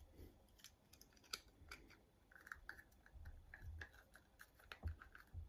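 Faint clicks and scratches of a small plastic AAA battery box being handled and fiddled with in the fingers.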